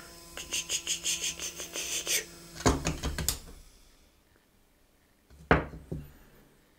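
Small DC motor spinning a plastic propeller with a steady whirr and a fast rattling clatter of about six clicks a second, then stopping about two and a half seconds in amid a few plastic clacks. After a near-quiet pause there is a sharp knock of plastic on plastic about five and a half seconds in, and a lighter one just after.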